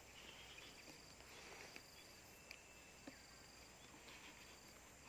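Near silence: faint outdoor ambience with a thin, high insect chirring and a few soft clicks.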